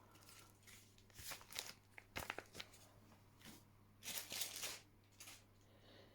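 Faint handling noise of small items and packaging: irregular bursts of crinkling and rustling with a few light clicks, the longest a little after four seconds in.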